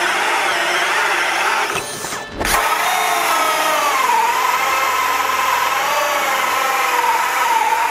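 Cordless hammer drill drivers cutting a 68 mm hole saw into softwood in second gear. First a Makita 18V DHP486 runs, then, after a brief break about two seconds in, a Makita 40V HP001GZ. Its motor whine wavers as the saw loads up in the cut.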